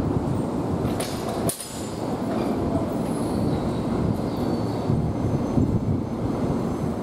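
Keikyu electric train running, a dense rumble of wheels on rails that breaks off sharply about a second and a half in and then builds back up.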